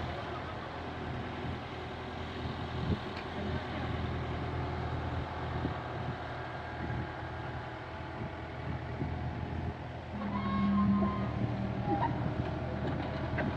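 Engine of a compact loader running steadily at the water's edge while the floating dock is launched, swelling louder for about a second near the end.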